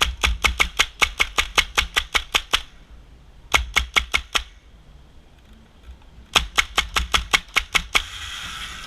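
Airsoft gun firing rapid strings of shots, about six a second: a long string of around fifteen, a short one of six, then about ten more, each shot a sharp crack.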